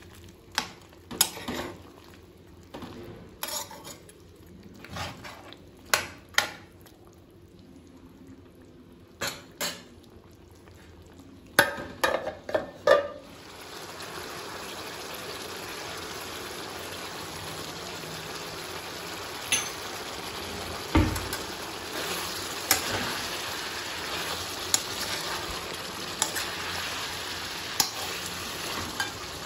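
A steel spoon clicking and scraping against a kadai as chicken pieces are stirred, in sharp separate strokes. About halfway through a steady sizzle of frying comes up and runs on under scattered spoon clicks, with one low thump a few seconds later.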